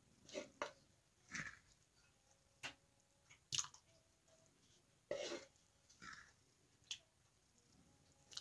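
A plastic measuring cup scooping thick chili out of a cast-iron Dutch oven and emptying it into an enamelware bowl: a series of short wet plops, scrapes and sharp clicks, about one a second.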